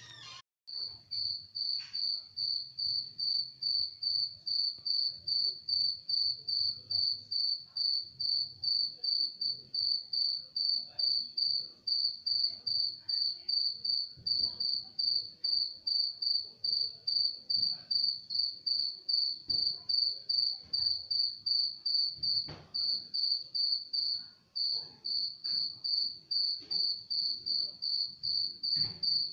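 An insect chirping: a high-pitched, steady chirp repeated in an even rhythm of about two to three chirps a second.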